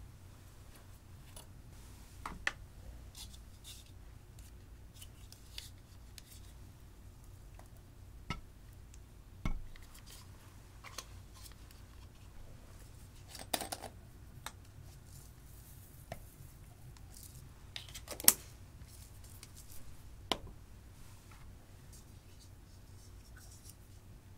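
Scattered sharp clicks and taps, about a dozen spread out, from makeup compacts and containers being handled and opened over glass dishes. The loudest click comes about 18 seconds in, over a faint steady room hum.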